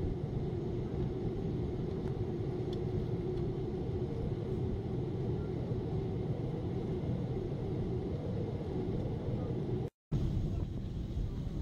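Steady jet-airliner cabin noise in flight: a constant low rumble of engine and airflow heard from inside the cabin. It cuts out for a split second about ten seconds in.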